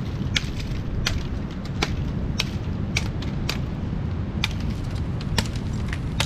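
Machete chopping at a green bamboo pole: about ten sharp knocks at uneven intervals of roughly half a second, over a steady low rumble.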